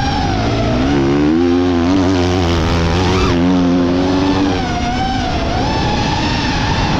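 FPV drone's propellers whining, the pitch wavering up and down with the throttle, joined from about a second in by a motocross bike's engine running under load, which fades out about halfway through.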